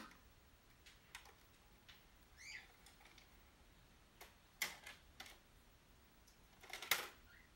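Sparse, faint clicks from a VHS deck's tape mechanism after playback stops, with two louder clunks about four and a half and seven seconds in. A brief rising chirp, like a small squeak, about two and a half seconds in.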